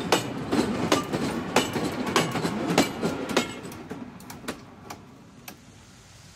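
Freight wagons rolling past on broad-gauge track, their wheels clicking over the rail joints roughly every half second over a rumble. After about three and a half seconds the tail of the train is past, and the sound fades away with a few last clicks.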